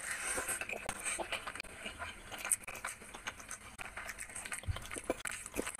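Close-up eating sounds: sticky, wet clicks and squishes of fingers mixing rice with curry on the plate, along with chewing.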